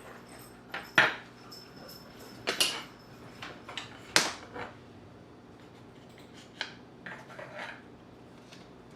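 Light clicks and knocks of small wooden kit pieces being handled and set down on a table, a scattered handful of taps, the sharpest about one and four seconds in.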